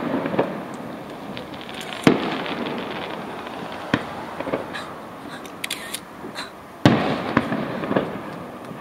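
Aerial firework shells bursting: three sharp bangs, about two seconds in, about four seconds in and near seven seconds, each trailing off into a rolling echo with scattered crackling between them.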